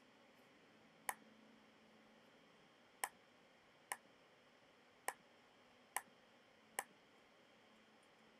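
Six sharp computer mouse clicks, unevenly spaced, as options are picked in a software dialog and its drop-down menu, over faint room tone.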